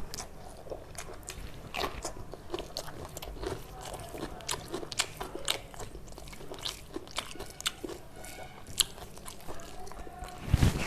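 Close-miked chewing of a mouthful of food, with many sharp, crisp crunching clicks scattered irregularly throughout.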